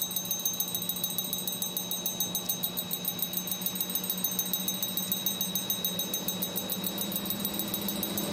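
Railway level crossing warning bell ringing in rapid, evenly spaced strokes as a train approaches.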